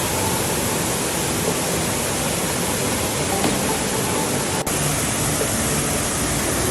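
Steady rushing of a waterfall, with a brief break about two-thirds of the way through.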